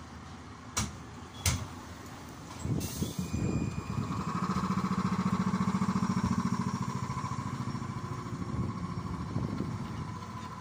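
AKSM-32100D trolleybus departing a stop: two sharp knocks and a short hiss of air as the doors work, then the electric traction drive hums and whines as it pulls away, fading as it leaves.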